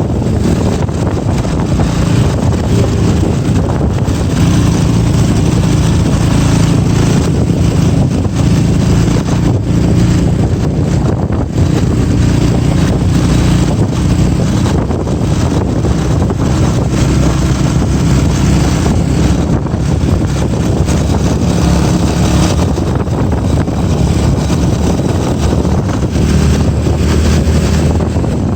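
Steady noise of a vehicle moving along a road, with engine drone and wind buffeting the microphone.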